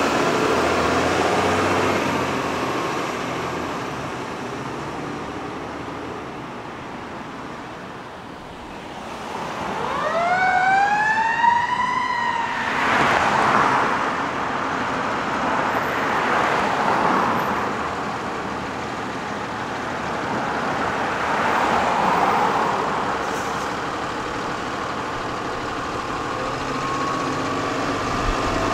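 Fire engine siren wailing over the truck's engine during an emergency response. About ten seconds in, one wail sweeps up and back down over a few seconds, and slower rising and falling wails follow.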